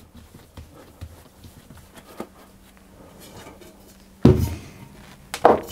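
Kitchen handling noises: soft scattered knocks, then a heavy thump about four seconds in and a sharper knock near the end, as the ball of bread dough is set back into the mixer bowl.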